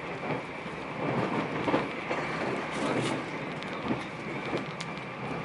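Meitetsu μSKY electric train running along the line, heard from inside the car: a steady rumble with uneven swells and scattered knocks of the wheels over the track.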